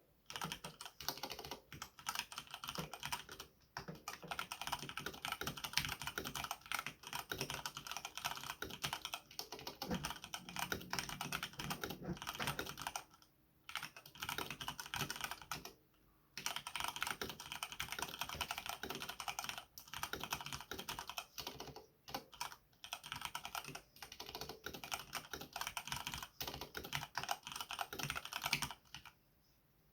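Typing on a Samsung mechanical keyboard fitted with Cherry MX Brown switches, sound-dampening foam and Permatex-lubed stabilizers: a fast, steady clatter of keystrokes, broken by a few short pauses.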